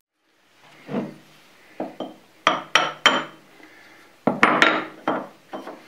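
Hand tools and steel parts clinking and knocking against a Bridgeport rotary table as it is being taken apart. The clinks are sharp and irregular, with short ringing, and the loudest cluster comes about four seconds in.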